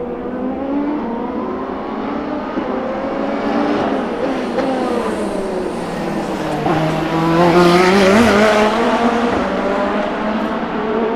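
Several endurance race cars running through a corner, their engine notes overlapping, falling as they slow and rising again as they accelerate away. The loudest car passes about eight seconds in.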